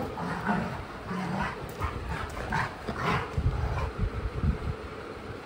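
Golden retriever making short whines and yips during play, with scuffling and low thumps of movement close by.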